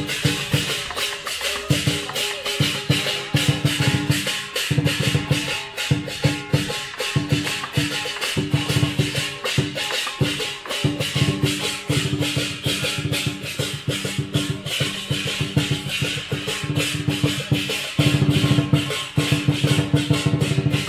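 Live Chinese lion and dragon dance percussion, a big drum with clashing cymbals and gong, playing a fast steady beat. The drum drops out briefly a few times while the cymbals keep going.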